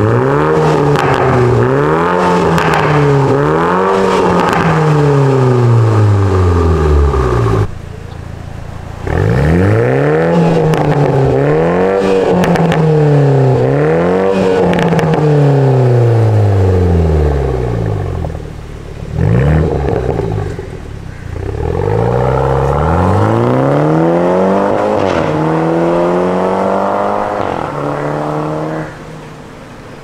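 Toyota GR Supra's 2.0-litre turbocharged B48 four-cylinder revved repeatedly through a Fi Exhaust valvetronic cat-back, the pitch rising and falling with each rev. There are short lulls about eight seconds in and again around twenty seconds, then a longer climb toward the end.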